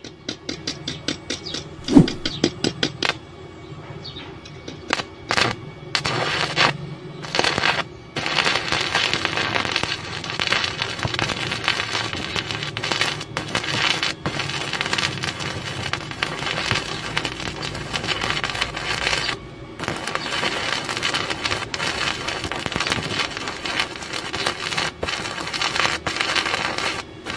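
Stick (arc) welding with a Makita MMA-400 inverter welder: a run of sharp scratches and cracks for the first few seconds as the electrode is struck to start the arc, then the arc burning with a steady crackling sizzle, cut off briefly twice.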